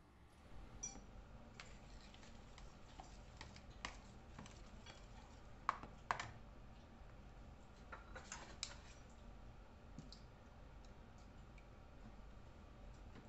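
Scattered light clicks and clinks of kitchen utensils and containers being handled on a counter, with two sharper clinks about six seconds in.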